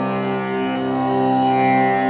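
Tanpura drone tuned to C, its strings plucked in turn so that each new note swells over the ones still ringing, in an unbroken drone rich in overtones.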